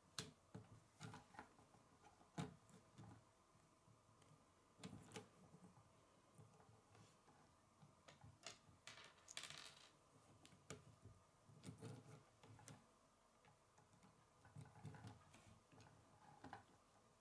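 Faint, scattered clicks and snaps of plastic K'nex pieces being handled and clipped together, with a brief rustle about nine seconds in.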